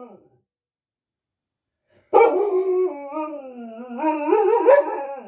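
A dog howling: after a fading tail of an earlier call, one long howl of about three seconds begins about two seconds in. Its pitch slides down, then rises and wavers near the end.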